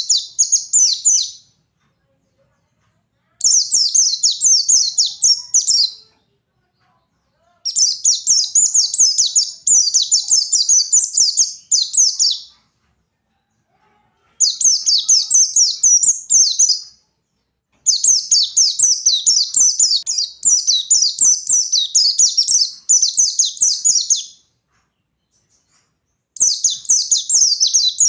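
White-eye (pleci) singing a fast, high chattering song in bouts of a few seconds, broken by short pauses.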